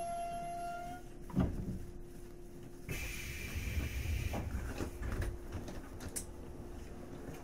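A stationary 485 series electric train humming steadily at a platform. A held high tone stops about a second in, a sharp thump comes soon after, and a burst of hissing air lasts about a second and a half from around three seconds in.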